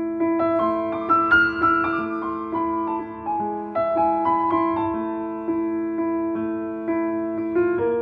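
Background piano music: slow solo piano notes and chords, each struck and left to ring out.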